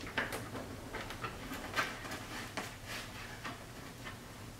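Light, irregular clicks and ticks of small screws being threaded in by hand and the front splitter shifting against the car's underside.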